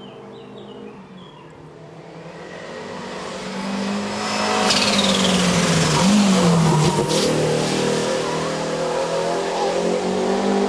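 Hillclimb race hatchback approaching and passing close, its engine growing steadily louder. Its pitch dips briefly about six seconds in and then climbs again as it pulls away under power.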